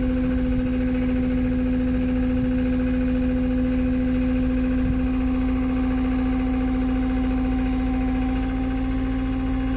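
An engine idling steadily, with a strong even hum over a low rumble.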